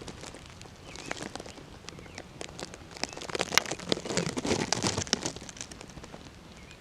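Close rustling and crackling with scattered sharp clicks, heaviest about three to five seconds in, with a couple of faint short bird chirps.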